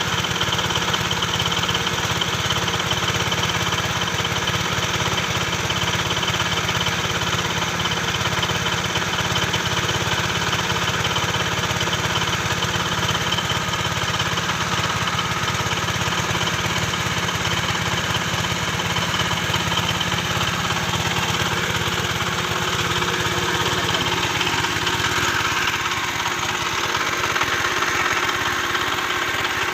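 Small engine running steadily, driving a homemade water-well drilling machine. Its note shifts slightly about 26 seconds in.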